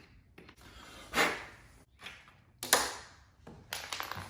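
A power drill runs in two brief bursts, each dying away after about half a second, then a quick run of clicks and knocks near the end.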